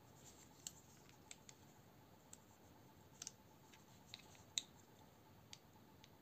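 Light metallic clicks and taps of a steel pocket clip against a folding knife's micarta handle scale as it is pressed and tried in place. About ten separate small clicks, irregularly spaced, the loudest a little past halfway.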